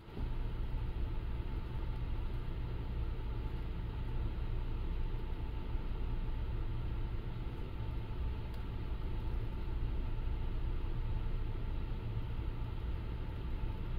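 Ferry's engines heard from on board: a steady, unchanging low rumble with a faint even hum above it.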